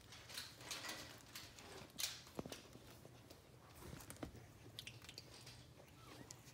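Faint chewing, clicking and rustling from 3½-week-old Coton de Tulear puppies mouthing and pawing plush toys on carpet, with a few small soft clicks scattered through.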